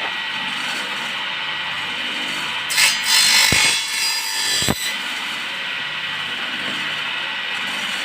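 Wood-cutting power saw running steadily, then cutting into a piece of wood for about two seconds starting nearly three seconds in, with a louder rasp and two knocks, before running free again.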